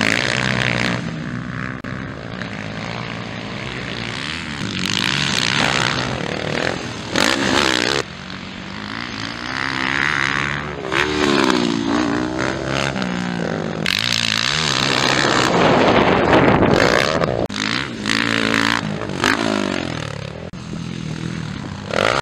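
Motocross bike engines revving hard as the bikes pass and jump, the pitch rising and falling again and again with the throttle, in several passes.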